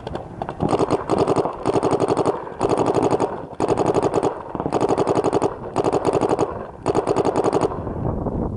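Paintball marker firing rapid strings of shots, each string lasting under a second, with short pauses between about seven strings.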